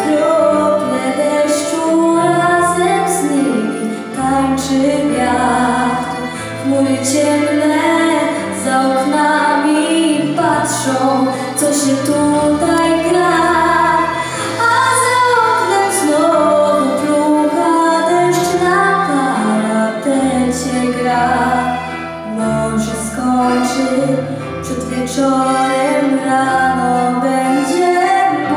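A girl singing a Polish song solo into a microphone, amplified through a stage speaker, over an instrumental accompaniment with held bass notes.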